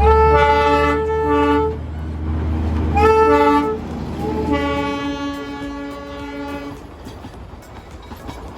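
Darjeeling Himalayan Railway toy train horn sounding three times, each blast a chord of several tones. The first two blasts slide up in pitch as they start, the last is the longest, and a low engine rumble runs under the first two.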